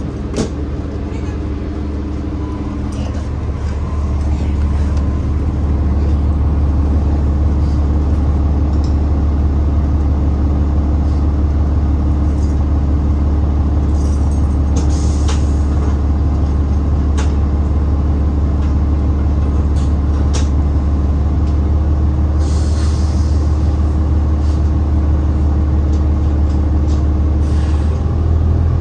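The Cummins ISL9 diesel engine of a New Flyer Xcelsior XDE60 hybrid articulated bus idling with a steady low drone while the bus stands still, heard from the passenger cabin. The drone grows louder about four seconds in. A few short air hisses and light clicks come over it.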